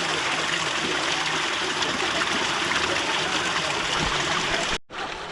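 Steady spatter and rush of a dripping waterfall, with many drops of water falling onto rock and into a pool. The sound drops out for an instant near the end and comes back slightly quieter.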